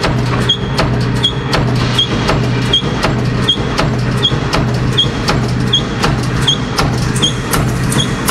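Sheet-metal punch press stamping slots in a steel sheet: a fast, even rhythm of sharp metallic strikes over a steady machine hum, with a short high squeak repeating about every three-quarters of a second.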